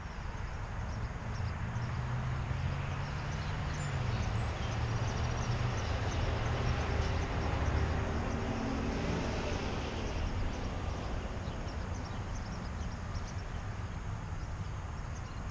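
Low, steady engine drone, its pitch sliding down a little about four seconds in.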